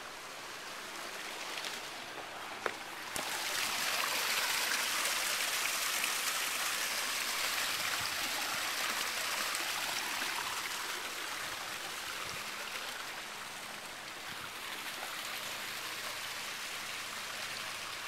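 Steady rush of water from a boulder waterfall spilling into a swimming pool, growing louder about three seconds in. A brief click comes just before the rise.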